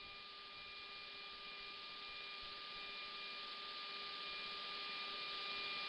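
Faint steady hiss with a thin high steady tone on an aircraft intercom feed during the takeoff roll, slowly growing louder.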